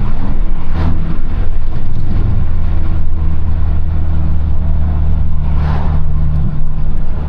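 A 2022 Honda Civic Si's turbocharged 1.5-litre four-cylinder running steadily while driving, heard from inside the cabin as a loud, even low drone with road noise.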